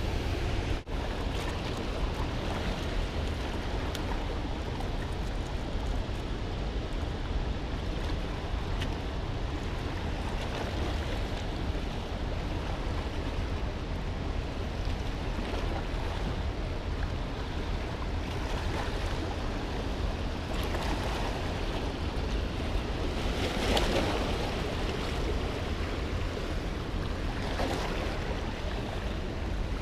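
Steady rush of turbulent river water below a hydroelectric dam, with wind buffeting the microphone. It swells a few times in the last third.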